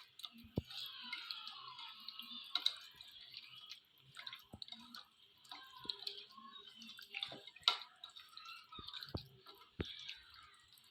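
Hands squishing and turning raw chicken pieces in a wet curd (yogurt) marinade: faint, irregular squelching and small wet clicks.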